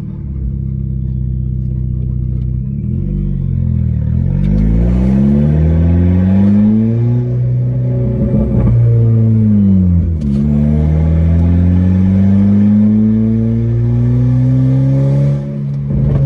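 Straight-piped Volkswagen GTI exhaust heard from inside the cabin while driving. The engine note climbs and drops several times as the car accelerates and shifts, then makes one long steady climb near the end.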